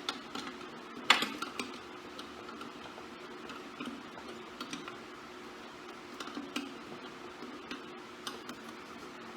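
Small metal clicks and taps from hand work on the welder's wire-spool spindle and its nylock nut, with one sharp click about a second in, over a faint steady hum.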